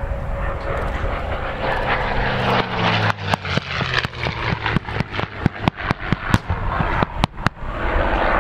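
A CAC CA-18 Mustang's V-12 Merlin engine passing low with its pitch falling as it goes by, then a rapid string of about twenty sharp bangs from airshow pyrotechnic charges going off along the runway. Near the end a broad rushing blast swells up as a large fireball goes off.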